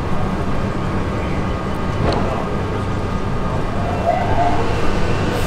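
Steady low hum of a suburban electric train standing at a station platform, its rooftop equipment running, over general station noise, with one short sharp sound about two seconds in.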